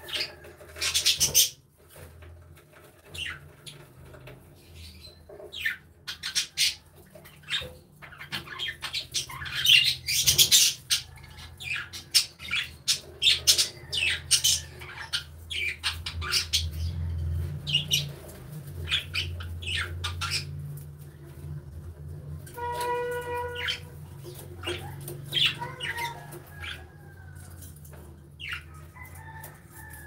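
A flock of budgerigars chirping and chattering, with many short, sharp high chirps and clicks. About three-quarters of the way through comes one longer pitched call, and a low steady hum runs beneath.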